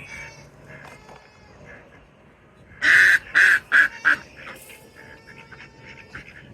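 Ducks quacking: a loud run of about five quacks about three seconds in, with fainter calls around them.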